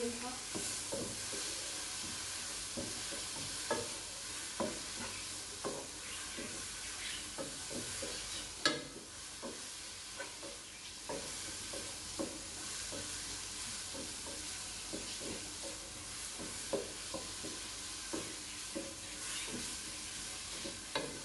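Wooden spoon stirring and scraping vegetables in a nonstick pot, with the steady sizzle of the food frying underneath. Frequent short knocks of the spoon against the pot, the sharpest about nine seconds in.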